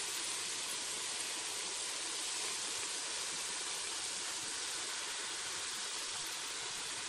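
Potato fries deep-frying in a pot of hot oil: a steady, even sizzle.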